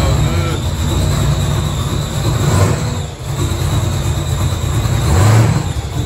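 Twin-turbo LS V8 in a box Chevy running at idle with a deep, uneven rumble. The rumble dips briefly about three seconds in and swells a little just past five seconds.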